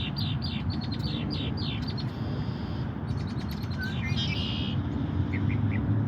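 Songbirds chirping and calling: a quick run of sharp high chirps at the start, a short buzzy trill about two seconds in, then a few scattered calls, over a steady low rumble.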